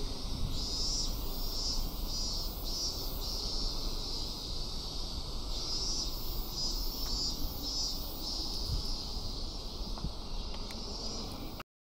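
Cicadas chirring steadily in a high, shrill drone that swells and fades in pulses, over a low rumble of wind on the microphone; the sound cuts off suddenly near the end.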